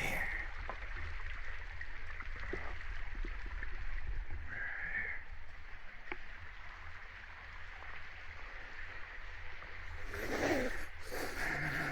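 Steady rush of waterfall and stream water, with a brief high-pitched call about five seconds in and a couple of louder breathy bursts near the end.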